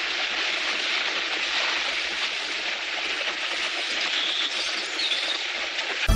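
Steady, noisy splashing of horses charging through a shallow river.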